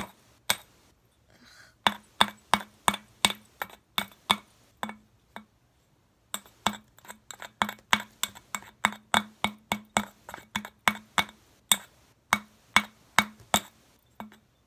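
A screwdriver tapping against glass inside a light bulb's base, chipping away the inner glass. Sharp clinks come about three a second, with a pause of about a second near the start and another around the middle.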